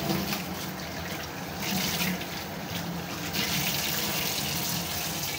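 Kitchen tap running, cold water pouring over pieces of Japanese egg tofu in a bowl to rinse them; the splashing grows louder past the middle.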